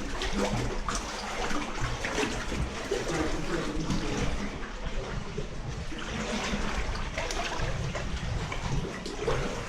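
People in wellington boots wading through shallow standing water, with continuous irregular splashing and sloshing.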